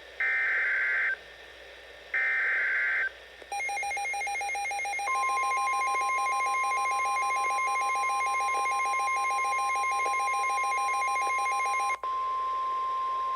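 NOAA Weather Radio EAS alert: two roughly one-second bursts of the screechy SAME digital header data, then the steady 1050 Hz warning alarm tone. From about three and a half seconds in, the receiver's own pulsing, buzzing alert alarm sounds over the tone, cutting off with a click about twelve seconds in while the steady tone carries on.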